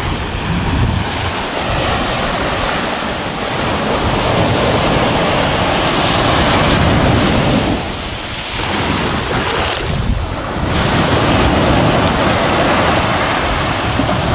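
Small surf washing up on a sandy beach, with wind buffeting the microphone. The wash swells and eases, dipping briefly about eight and ten seconds in.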